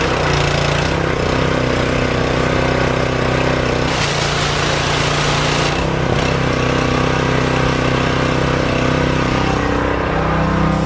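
Westinghouse 3400 PSI gas pressure washer engine, just caught after a pull-start, running steadily. A stretch of hiss lasts about two seconds around the middle.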